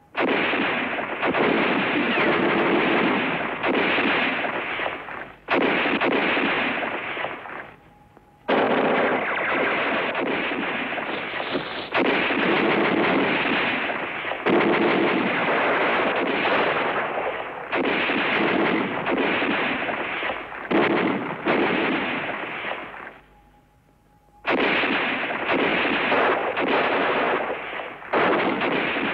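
Sustained small-arms gunfire in a dense, continuous barrage, shifting abruptly in level several times. It drops almost to silence for about a second and a half shortly after two-thirds of the way through, then resumes.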